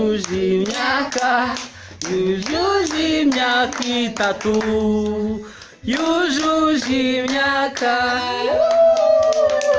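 A small group of women singing unaccompanied, with hands clapping along.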